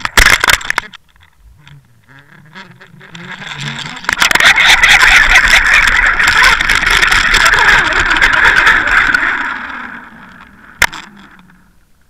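Rushing, crackling water noise picked up inside an underwater camera's housing as it spins on a fishing line, swelling about four seconds in and fading near the end. Clicks and knocks at the start, and one sharp knock near the end.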